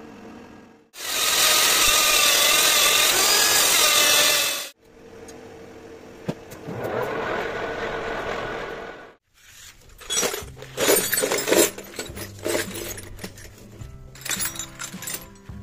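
Metal lathe work in short cut-together clips: a loud harsh cutting noise with a wavering whine, then a lathe running and a tool cutting a metal workpiece with a rising hiss. In the last third, music starts with sharp clinking sounds over it.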